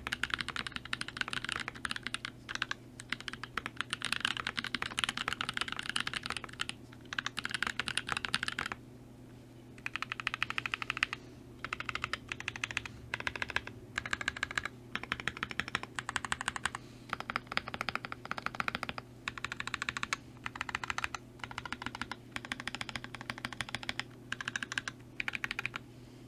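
Continuous typing on a custom mechanical keyboard with lubed Gazzew Boba U4T tactile switches in a stacked acrylic Alice-layout case, with GMK keycaps: fast runs of keystrokes, broken by short pauses, the longest about a second around nine seconds in.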